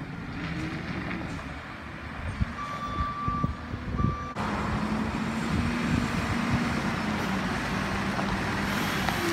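Diesel garbage trucks running, with a backup alarm beeping twice about three seconds in. After an abrupt change, a diesel front-loader garbage truck runs steadily with a low drone.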